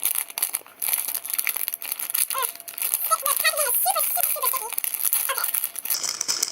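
Plastic packaging crinkling and rustling as it is handled and opened by hand, a continuous run of small crackles.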